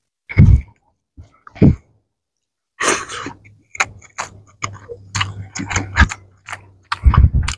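Close-miked eating sounds. Two loud, short mouth smacks come in the first two seconds. From about three seconds in, fingers mash and mix rice into fish curry on a platter, giving a dense run of wet sticky clicks and squelches.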